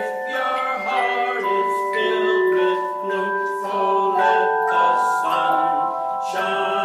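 Tone chime ensemble playing a melody: handheld aluminum chimes struck one after another, each note ringing on and overlapping the next into chords.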